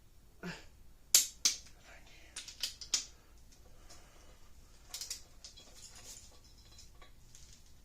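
Sharp metallic clicks and clacks of a torque wrench and socket on the cylinder head studs: two loud clicks around one second in, a quick run of clicks between two and three seconds, and a few softer ones near five seconds.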